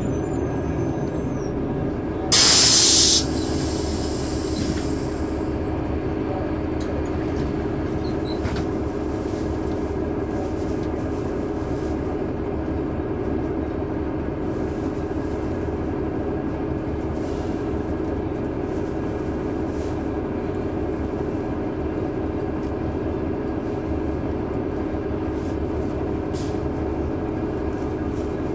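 Caterpillar C9 ACERT diesel engine of a 2003 Neoplan AN459 articulated transit bus, heard from on board, running with a steady drone. About two and a half seconds in, a loud burst of air hiss lasts under a second and trails off.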